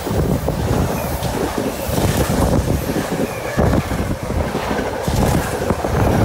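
NJ Transit Arrow III electric multiple-unit train passing at speed close by without stopping: a loud, steady rumble of steel wheels on rail with quick irregular clatter.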